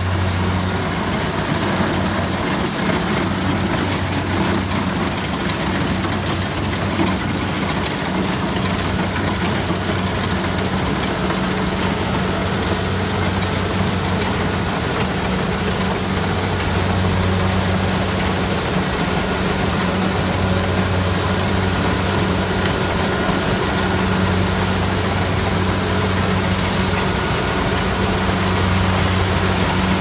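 Kubota tracked combine harvester running while it cuts rice: a steady, unbroken engine drone with a low hum, over a constant wash of machinery noise from the cutter and threshing works.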